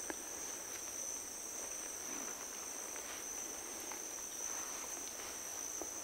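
Steady, high-pitched insect chorus of the rainforest, two continuous shrill tones held unbroken, with a few faint rustles among them.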